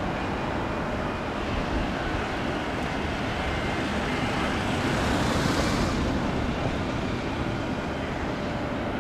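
Steady outdoor rumble of road traffic, with one vehicle swelling past close by about five seconds in.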